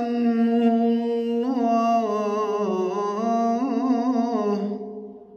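A man's voice chanting Quran recitation (tilawah) into a microphone, holding long melodic notes with wavering ornaments and steps in pitch. The phrase fades out near the end.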